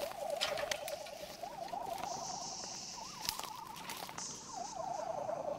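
Footsteps crunching through dry grass and brittle twigs, with sharp snaps and rustles. Behind them a faint high warbling tone rises and falls several times a second.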